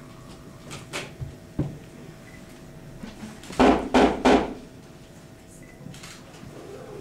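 Three loud knocks on a wooden door, about a third of a second apart, a little past the middle. A couple of lighter clicks come about a second in.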